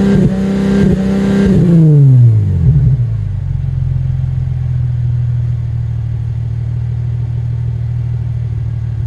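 2018 Subaru Legacy 3.6R's 3.6-litre flat-six, on an AVO Turbo exhaust with Raptor headers, held at high revs near 4,000 rpm for about two seconds, then falling back to a steady idle about three seconds in.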